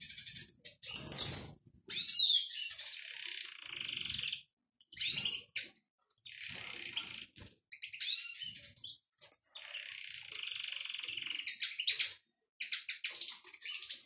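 Small caged finches singing and chirping. Several twittering song phrases of a second or two each come with sharp, quick chirps in between.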